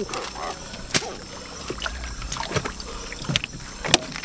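A handful of scattered sharp knocks and taps as a baung river catfish and a large knife are handled on a wooden chopping board, before the cleaning begins.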